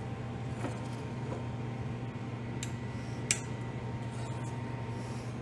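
Steady low hum with two sharp light clicks, about two and a half and three and a half seconds in: an aluminium CNC touch plate being set down on plywood.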